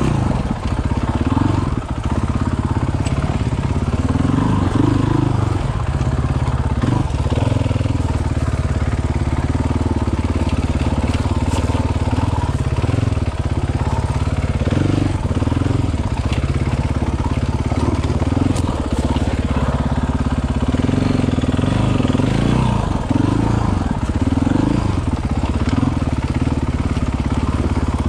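KTM 500 single-cylinder four-stroke dirt bike engine running at low speed, the throttle opened and eased off again and again as the bike crawls over rocks. There are a few sharp knocks along the way.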